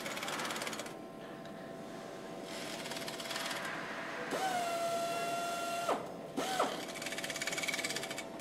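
Assembly-line factory noise of power tools and machinery. About four seconds in, a steady electric tone sounds for about a second and a half, then briefly once more.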